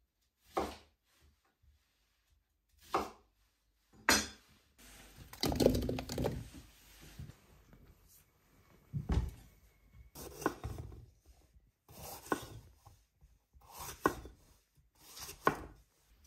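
Kitchen knife cutting vegetables on a wooden cutting board: single cuts knocking on the board every second or two, with a stretch of rustling and handling of the pieces between them.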